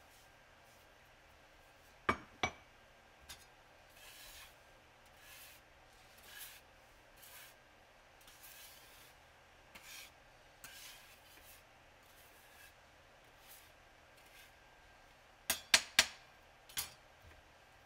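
Blade scraping yellow powder across a glass slab in a series of short, soft strokes. Two sharp knocks on the glass come about two seconds in, and a quick cluster of sharp knocks comes near the end.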